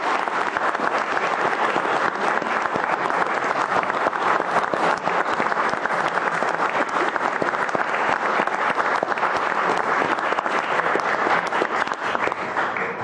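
Room audience and council members applauding with steady clapping that dies away at the end.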